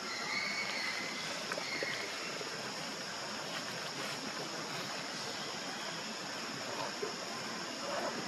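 Steady outdoor background noise with a constant high-pitched drone and, in the first couple of seconds, a faint short high call.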